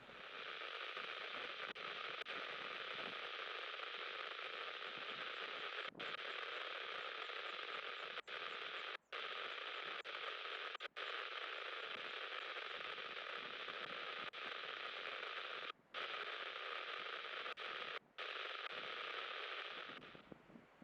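VHF radio hissing with static on an open channel carrying no speech. It cuts out briefly several times and stops abruptly near the end.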